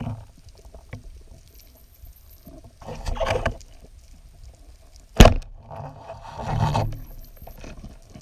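Underwater sound around a freediving spearfisher working a reef: muffled rushing swells of water noise twice, and a single sharp, loud click about five seconds in.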